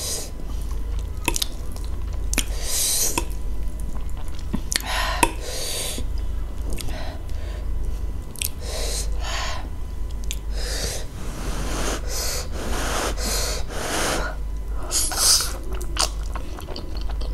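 Person eating cheese-topped spicy ramen close to the microphone: about a dozen short, airy noodle slurps and sharp intakes of breath at irregular intervals, with chewing and a few soft mouth clicks between them. A steady low hum runs underneath.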